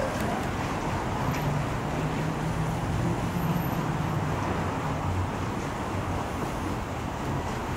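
Small Wren-class narrow-gauge steam locomotive running slowly, with a steady hiss of steam from its cylinder drain cocks over a low rumble.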